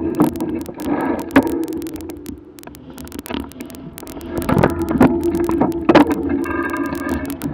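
Vehicle engine idling with a steady low hum, overlaid by frequent sharp clicks and knocks; a short pitched sound near the end.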